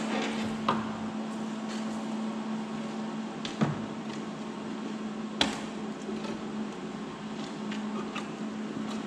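A steady electrical hum, with a few sharp metal knocks about a second in, in the middle and a little later, as the sheet-steel muffler halves are handled and set together.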